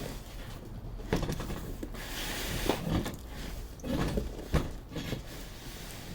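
Heavy cardboard box being shifted against its packaging: cardboard rubbing and scraping, with a few knocks, the sharpest a little past the middle.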